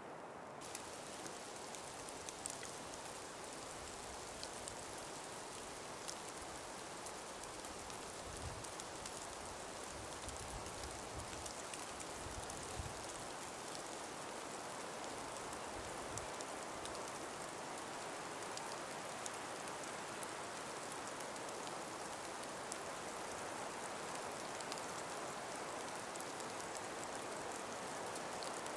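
Calm winter breeze moving through an ice- and snow-laden forest: a steady soft hiss with scattered faint light ticks and patter throughout, and a few soft low gusts around the middle.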